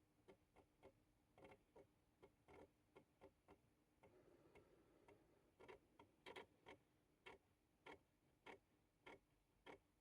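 Amiga 500 Plus internal floppy drive loading a disk: faint, irregular clicks of the drive head stepping as it reads, about two a second, with a brief whir around four seconds in.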